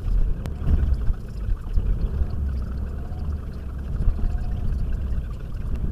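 Renault Mégane RS's 2.0 turbo four-cylinder engine and tyre noise heard from inside the cabin while driving, a steady low rumble. Two sharp clicks in the first half-second.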